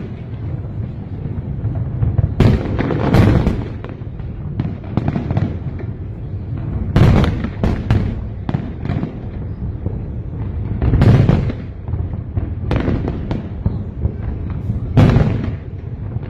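Aerial fireworks exploding in a display: sharp bangs in clusters every few seconds, each followed by a low rumbling echo.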